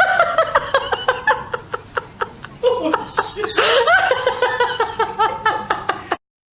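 A person laughing hard in two long fits of rapid pulsing laughs, with a short catch of breath between them. The sound cuts off suddenly about six seconds in.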